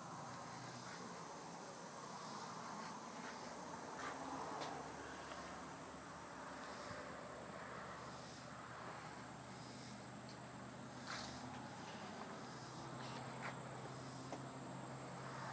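Insects outdoors keeping up a steady, high-pitched trill, over faint outdoor background noise, with a few faint clicks.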